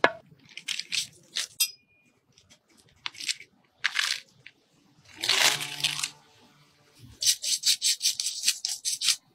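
Breaking open the dried mud seal of an old stoneware wine jar: a hammer knock right at the start, then short scrapes and crackles as a blade pries the hard mud loose, with a longer rough scrape a little past the middle. For the last two seconds a bristle brush sweeps the top in quick dry strokes, about five a second.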